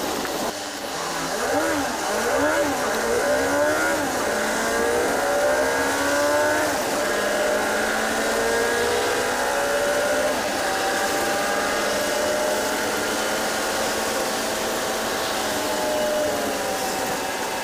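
A city bus heard from inside, its engine and drivetrain whining in pitch. The whine wavers up and down in the first few seconds, rises for a few seconds more as the bus picks up speed, then holds steady at highway cruising speed over a constant hiss of road noise.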